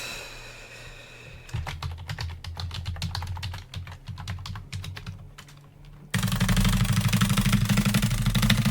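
Computer keyboard typing as a password is entered at a Linux installer prompt: a run of separate keystrokes, then about six seconds in a louder, rapid, unbroken stream of clicks, consistent with characters being typed and deleted in quick succession.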